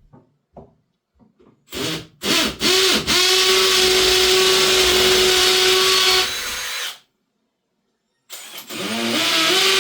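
Power drill boring into a breeze-block wall: a couple of short starts, then it runs steadily for about three seconds, slows and stops. After a short pause it starts up again for the second hole, spinning up near the end.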